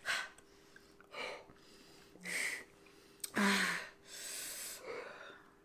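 A person's short, sharp breaths, gasps and sniffs, about six puffs spaced roughly a second apart, the loudest a little past the middle, after eating a lot of spicy pickled ginger that leaves the mouth burning and numb.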